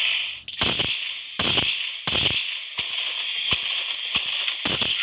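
Explosion sound effect: a string of firecracker bangs, about seven at uneven intervals, over a steady hiss.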